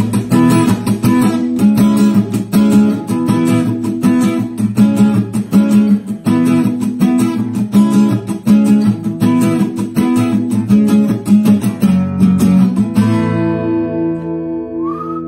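Guitar music: strummed chords in a steady rhythm, ending about 13 seconds in on a chord left ringing.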